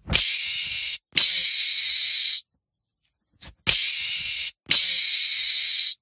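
Meerkat hissing: four loud hisses of about a second each, in two pairs, the second pair starting a little past halfway.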